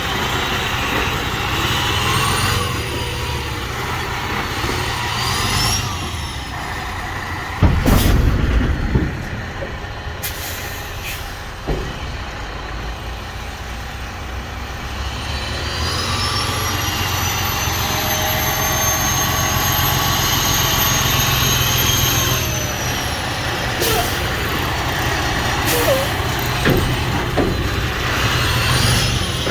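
The diesel engine of a Freightliner Columbia semi truck running steadily, with high whines that rise and then hold several times. A loud burst of rushing air comes about eight seconds in, like an air brake releasing.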